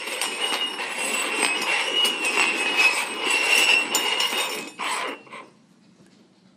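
Four stainless-steel cups shuffled quickly across a wooden floor, scraping and clinking, with the jingle bell under one of them ringing as it is carried along. The shuffling stops abruptly about five seconds in.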